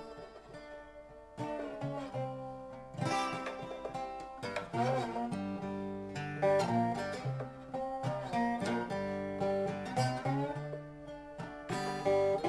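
Dobro (resonator slide guitar) playing an instrumental: plucked notes with slides between pitches, and a slide up into a note near the end.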